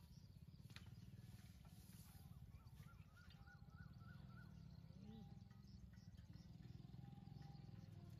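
Quiet outdoor ambience: a low steady rumble, with a bird giving a quick run of about seven short rising chirps about three seconds in.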